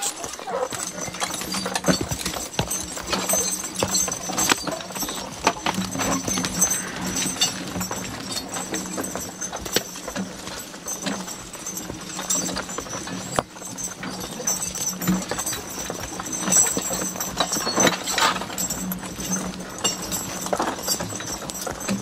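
A pair of draft horses walking, their hooves clopping irregularly on a dirt trail as they pull a wheeled logging cart with logs dragging behind, along with the clatter of the cart and harness.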